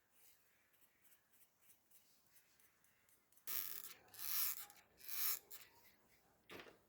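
A few short scraping strokes, about three in quick succession halfway through and one more near the end, with faint light ticks before them.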